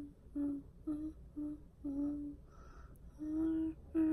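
A woman humming a tune to herself in a string of short, even notes, with a brief breathy hiss about two and a half seconds in.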